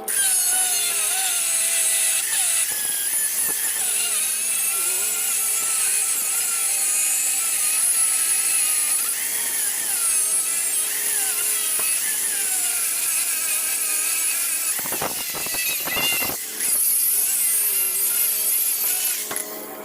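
A handheld power cutting tool cutting through the steel hinge tubes on a garbage truck's packing blade. Its pitch wavers as it bites under load, and it breaks off briefly about fifteen seconds in before cutting again.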